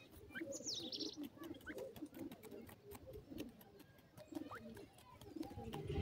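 Grey francolins making faint, low, soft calls at irregular intervals. About half a second to a second in, another bird gives a few high, falling chirps.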